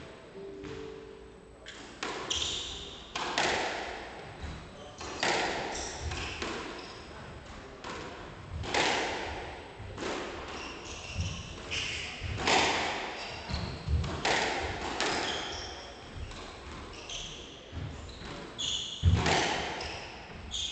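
Squash rally: the rubber ball struck by rackets and cracking off the walls and glass every second or two, each hit ringing briefly in the court, with short high squeaks of shoes on the hardwood floor between the hits.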